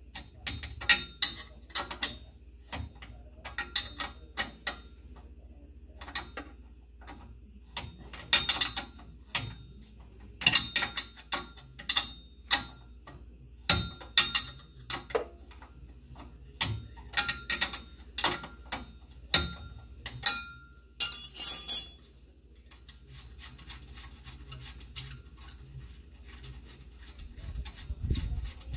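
Ratcheting wrench clicking in short bursts, over and over, as a bolt is worked back and forth. The clicking ends with a brief fast rattle about 21 seconds in.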